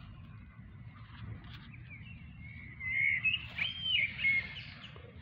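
Songbirds singing in short whistled and warbling phrases, louder from about three seconds in, over a low steady background rumble.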